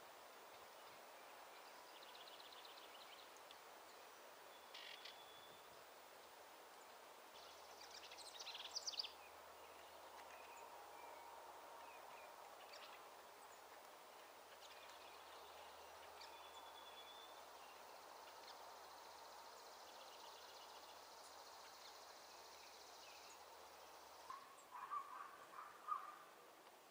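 Faint background hiss with scattered high chirps of wild birds a few seconds in, and a short run of louder, lower calls near the end.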